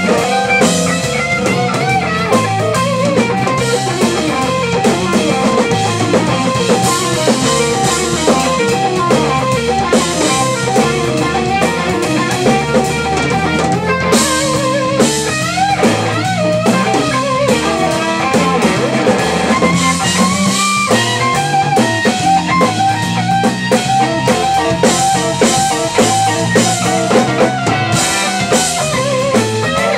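Live electric blues band: a Stratocaster-style electric guitar played through a Longhorn tube amp, a lead line full of string bends, over a drum kit and low bass notes.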